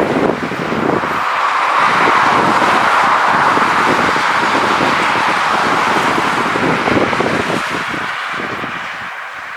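Jet airliner passing close along the runway, its engine noise swelling over the first couple of seconds and then slowly fading away, with wind buffeting the microphone.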